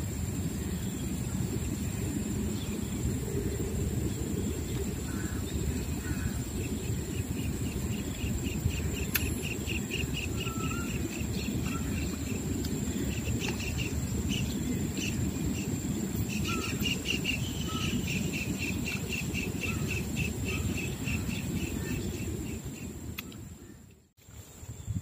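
Outdoor ambience: a steady low rumble under a constant high insect whine, with a bird calling in rapid trains of short repeated notes through the middle. The sound fades out near the end.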